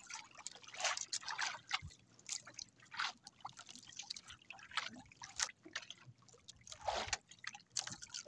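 Faint, irregular dripping and small splashes of water.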